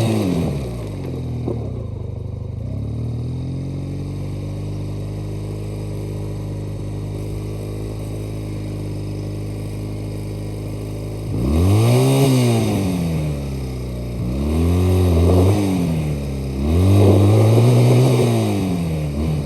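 1985 Honda Rebel's parallel-twin engine running. Its revs drop in the first second, it idles steadily, then it is revved up and let back down three times in the second half.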